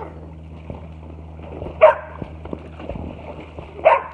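A dog barking twice, two short barks about two seconds apart, over a steady low hum.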